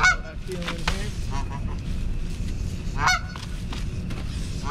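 Canada goose honking several times in short calls, the loudest right at the start and about three seconds in: a nesting goose defending its nest against intruders.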